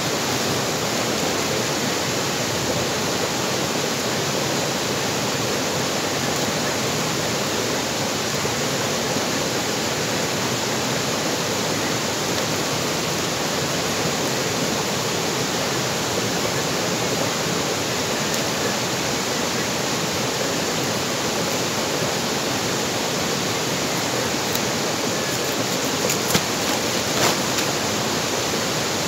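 A small rocky stream running, a steady, even rush of water. Two brief clicks stand out near the end.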